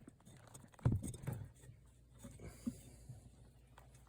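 Handling noises of work on a small tire and wheel: scattered light knocks and clicks, with one louder thump about a second in.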